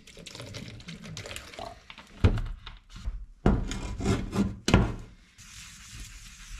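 Motorcycle clear coat being wet-sanded by hand with 1000-grit paper: irregular rubbing strokes with louder knocks about two, three and a half and nearly five seconds in, then an even hiss near the end.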